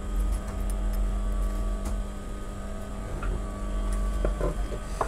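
Industrial sewing machine running steadily as it stitches a zip onto blouse fabric, a continuous low motor hum.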